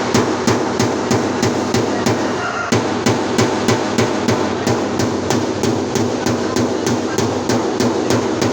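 Background music with a steady drum beat, about three beats a second.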